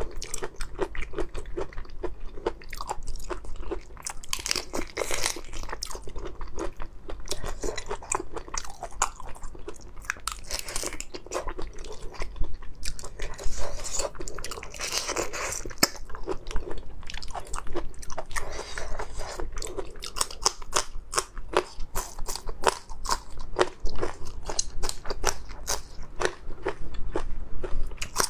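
Close-miked eating of a spicy raw marinated prawn dish: dense, irregular crunching and cracking of prawn shell with wet biting and chewing.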